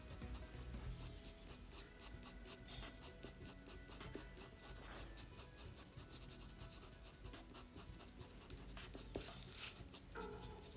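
Colored pencil scratching on paper in many quick, short strokes, as when hatching fur; faint.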